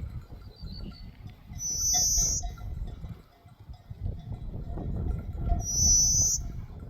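A herd of sheep and goats on the move: a low, uneven rumble of wind and movement. Two short high-pitched tones come about four seconds apart.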